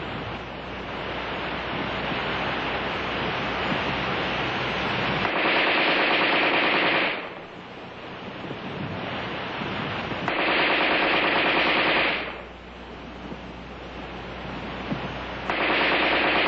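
AR-10 rifle firing 7.62 mm NATO rounds on full automatic in bursts of about two seconds. The bursts come about three seconds apart, fitting a magazine change between each. There are two full bursts, and a third starts near the end, with a steady hiss of old film soundtrack between them.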